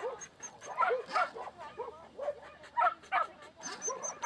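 Dog barking repeatedly, about two or three sharp barks a second.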